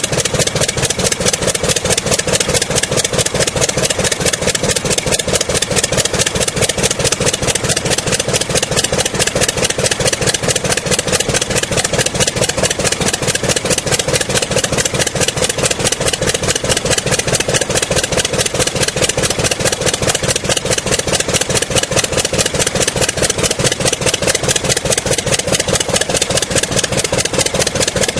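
The Curtiss OX-5 water-cooled V8 aero engine of a 1928 Command-Aire biplane, running at a steady, even speed with a fast, regular train of exhaust beats.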